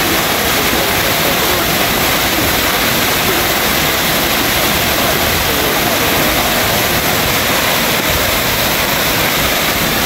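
Waterfall plunging down a rock face onto boulders and into a pool: a steady, loud rush of falling water.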